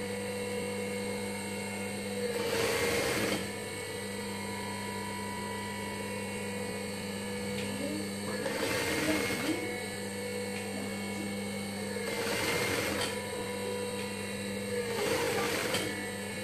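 Juki industrial sewing machine stitching in four short runs of about a second each, its needle whirring at speed. A steady motor hum carries on between the runs.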